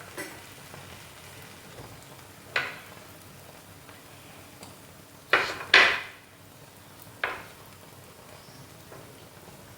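Paratha frying on a tawa with a faint sizzle, broken by a few sharp knocks of a utensil against the pan. The two loudest knocks come close together a little past halfway.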